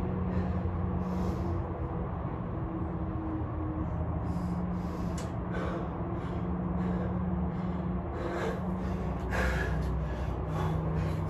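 A person breathing hard while exercising, with short noisy breaths that come more often in the second half, over a steady low hum.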